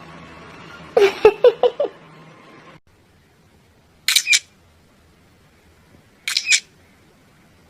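Parrot calling: a quick run of short, pitch-bending calls about a second in, then two brief, harsh, high screeches about two seconds apart.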